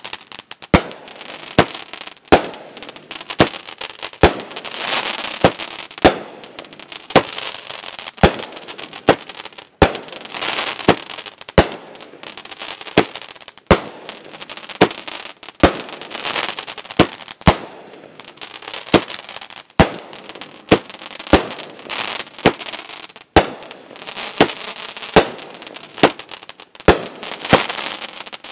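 A Brothers Pyrotechnics 36-shot, 500-gram consumer firework cake firing shot after shot, a sharp bang about every three-quarters of a second, with a hiss from the burning and bursting effects between the bangs.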